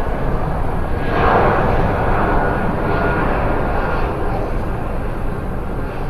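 Large twin-engine jet airliner on landing approach: a steady jet engine roar with a faint whine, swelling briefly about a second in.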